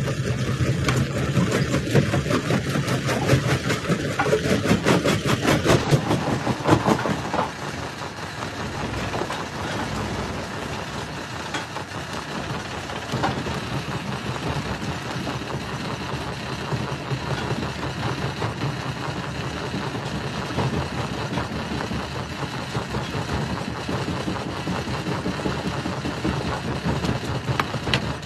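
Rock crusher running, with a rapid clatter of stones cracking and knocking in the first six or seven seconds, then settling into a steadier running sound.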